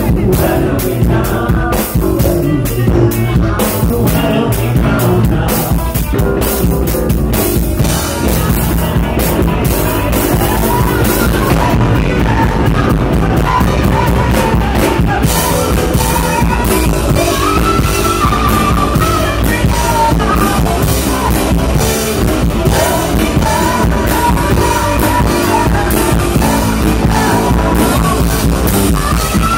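Live rock band playing loud: electric bass, drum kit and a male singer on a microphone, with the vocal line coming through more clearly in the second half. The recording's sound quality is poor.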